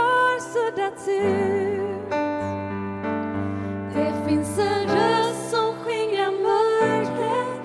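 Worship song: a woman's voice sings long notes with vibrato over sustained accompanying chords, the bass note shifting every second or two.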